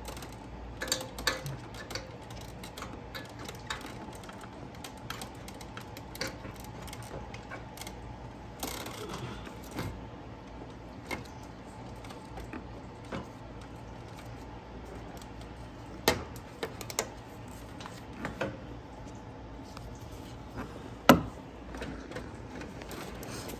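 Scattered light clicks and knocks of plastic and metal parts being handled as a car's A/C condenser is lifted and fitted back against a new radiator, with one sharper knock near the end. A steady low hum runs underneath.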